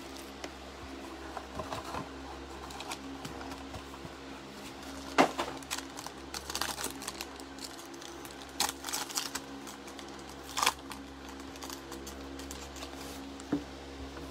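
Hands handling trading cards and opening a foil card pack: scattered sharp clicks and short crinkling bursts over a steady low hum.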